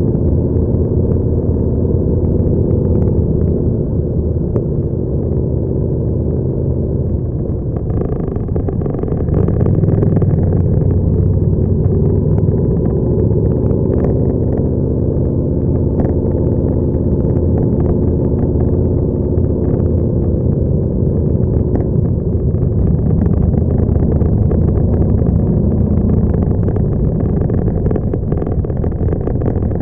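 Motorcycle engine running at a slow cruise, heard from a camera mounted on the bike itself, its note shifting with the throttle and picking up about eight seconds in.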